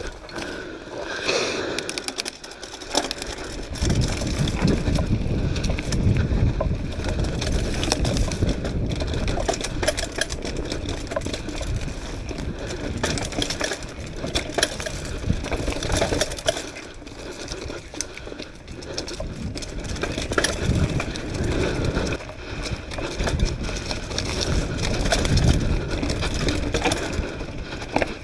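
Mountain bike riding down a dirt singletrack: tyres rolling over dirt, roots and leaf litter, with steady rattling and clicking from the bike. A low rumble comes in about four seconds in.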